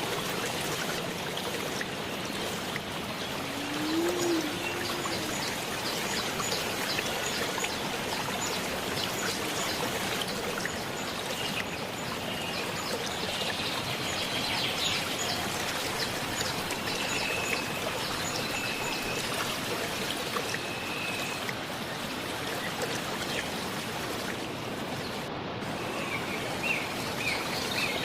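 Waterfall and its stream rushing steadily, with birds chirping here and there.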